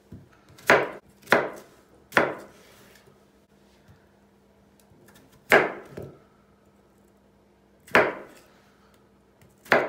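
Kitchen knife cutting through onion and potato and knocking on a wooden cutting board: about six sharp separate knocks at uneven intervals, with quiet gaps between them.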